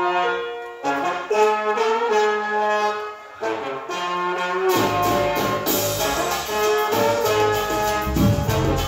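Latin tropical dance record played over a DJ's sound system: a horn section plays held phrases with short breaks, then about five seconds in bass and percussion come in and the full band plays.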